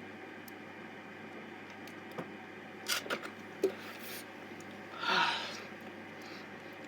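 A person catching her breath between gulps of Sprite while chugging it: a few short mouth and swallowing noises around three seconds in, then a sharp gasp of breath about five seconds in, over a steady hiss.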